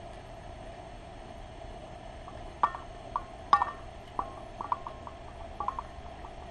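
About ten light clinks and taps from a tree-mounted bird feeder and its metal baffle, each ringing briefly, starting about two and a half seconds in as the feeder is jostled, with the two loudest near the start of the series. A steady faint hum sits underneath.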